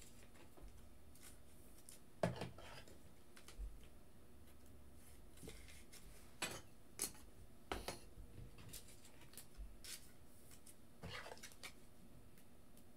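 Trading cards and rigid plastic toploaders being handled on a table: soft handling noise with a few scattered light clicks, the sharpest about two seconds in.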